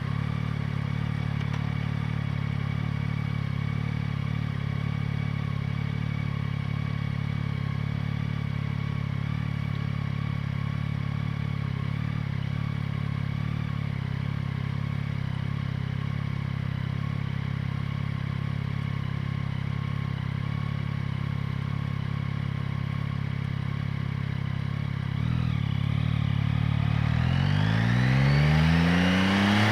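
Yamaha MT-09's three-cylinder engine idling steadily. Near the end it gives a short blip, then revs up with a rising pitch.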